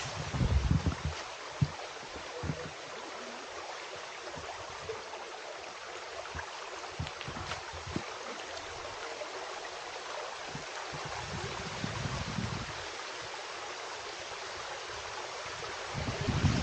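Rushing water: a steady, even hiss of a creek or falls. Wind buffets the microphone in low gusts near the start, around two-thirds of the way in and near the end, with a few faint knocks.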